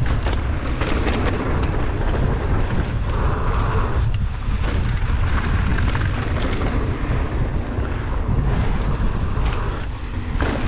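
Mountain bike rolling down a dirt bike-park trail: wind buffeting the microphone and tyre noise, with the bike rattling and knocking over bumps.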